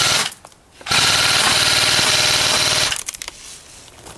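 Airsoft gun firing full-auto in two rapid bursts, a short break about a third of a second in, then a second burst of about two seconds. A few scattered clicks follow.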